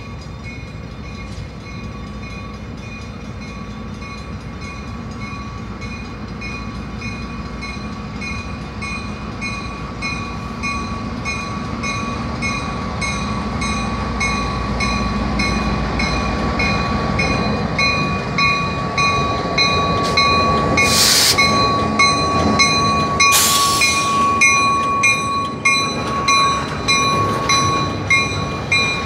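Railroad crossing bell ringing steadily while a Canadian National diesel locomotive approaches and rolls through the crossing, its engine rumble growing louder. Two brief loud hisses come about two-thirds of the way in, and wheels clack over the crossing near the end.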